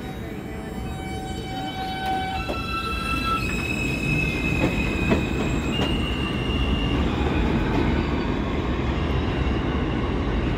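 R160A subway train pulling out of the station: its propulsion whine steps up in pitch through a series of tones as it accelerates, over the rumble of steel wheels on the rails, which gets louder after a couple of seconds.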